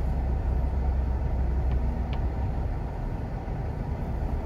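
Steady low rumble of road and engine noise heard inside a car's cabin while driving slowly through town.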